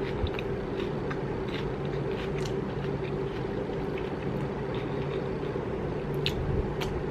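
Electric fan running with a steady hum, over which come scattered short crunches and wet chewing sounds as pickles and a sandwich are bitten and chewed.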